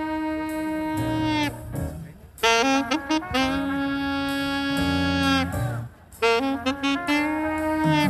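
Jazz saxophone music: the saxophone plays long held notes over a bass line, in phrases broken by brief pauses about two and six seconds in.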